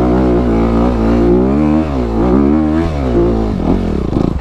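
Dirt bike engine revving under load on a steep rocky climb, its pitch rising and falling again and again as the throttle opens and closes, and dropping away near the end.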